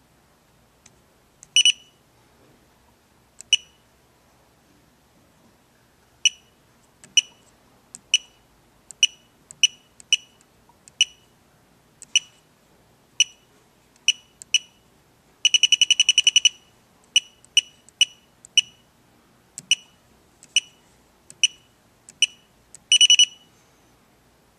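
Electronic beeps from the UTH-200 heated bed temperature controller's buzzer as its buttons are pressed. Short high beeps come one at a time, about every half second to second. Around the middle there is a quick run of rapid beeps, as when a button is held down, and there are longer beeps near the start and near the end.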